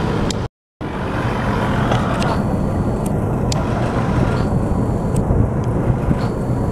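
Rescue boat's outboard motor running with a steady low rumble, its wash churning the water at the stern. A faint high tone comes and goes three times in the second half, and the sound cuts out briefly about half a second in.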